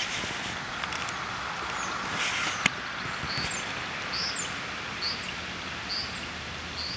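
A small bird chirping repeatedly in short, high, falling chirps, about one a second from a few seconds in, over steady outdoor background noise. A single sharp click sounds just before the chirping starts.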